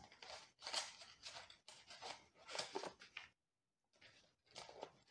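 Near silence with a few faint, short rustles of handling, and about a second of dead silence just after the middle.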